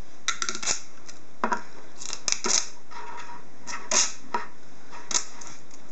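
A small clear plastic iPod Shuffle box being handled as its pull-tab seal is pulled: scattered short plastic clicks and crinkles, in small clusters a second or so apart.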